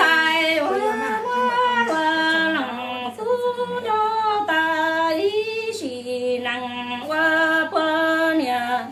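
A woman singing kwv txhiaj, Hmong sung poetry, unaccompanied, in long held notes that step up and down between pitches with short breaks.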